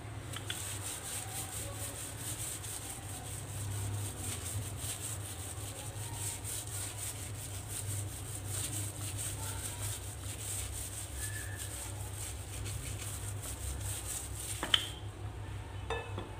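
Wooden rolling pin rolled back and forth over cumin biscuit dough through a plastic sheet: a steady rubbing with the plastic crinkling. A short knock near the end.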